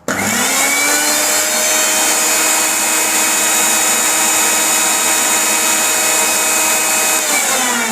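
Panasonic 750-watt mixer grinder with its jar fitted, switched on. The motor spins up to a steady, loud high whine at full speed. Near the end it is switched off and winds down with falling pitch. It measures about 88 dB on a sound meter.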